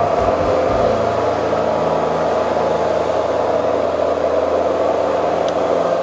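JLG 660SJ telescopic boom lift's engine running steadily while the machine drives at its fastest setting, rabbit mode on flat ground.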